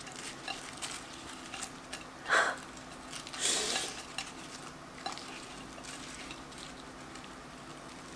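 Hands folding a flaky puff-pastry apple pie slice on a ceramic plate: scattered small clicks, taps and crackles, with a short louder sound about two seconds in and a brief rustle a moment later.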